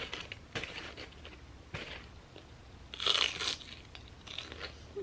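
Close-up crunching and chewing of a crispy rolled chicken taco, in uneven bursts, the loudest about three seconds in.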